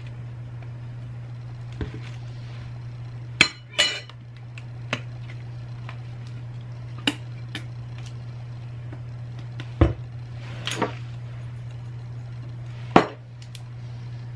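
A metal spoon clinking and knocking against a glass mayonnaise jar and a ceramic bowl as mayonnaise is scooped onto chopped eggs, in separate sharp knocks every second or so. A steady low hum runs underneath.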